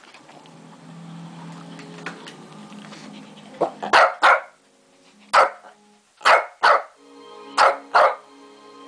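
Shih Tzu barking: about eight short, sharp barks, mostly in quick pairs, starting a little before halfway through, over a television's soundtrack music.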